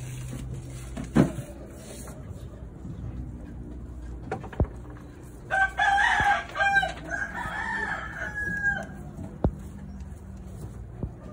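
A rooster crowing once, a long crow of about three seconds in the middle. A sharp knock comes about a second in, with a few lighter clicks later, over a low steady hum.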